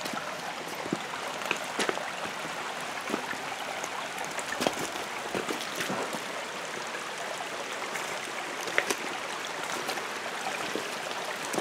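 A small spring-fed mountain creek running steadily over rocks, with scattered clicks and knocks of footsteps on the stones of the creek bed.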